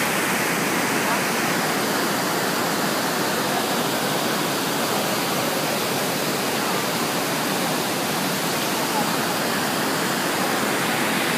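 Iguazú Falls: a large waterfall's plunging water making a loud, steady rush without letup.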